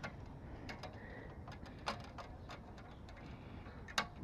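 A few light, sharp clicks and taps of hardware being handled and fitted while a license plate goes onto a tow-hook plate bracket, the loudest click near the end.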